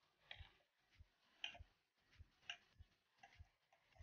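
Near silence with faint, short ticks about once a second.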